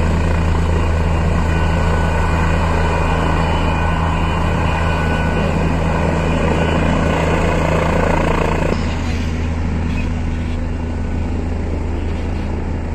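Helicopter running on the ground with its rotors turning: a steady low rotor drone with a thinner high whine over it. The sound drops slightly in level and brightness about nine seconds in as the helicopter moves off.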